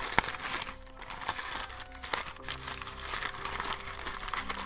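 Brown kraft packing paper crumpling and crinkling as it is handled, with two sharp crackles, one just after the start and one about two seconds in. Soft background music with held notes plays underneath.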